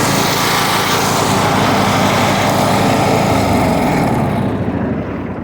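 Toro TimeCutter Z4220 zero-turn mower's 21 hp Kohler Courage engine running steadily while mowing, its pitch shifting about three seconds in. Near the end it winds down as the engine shuts off.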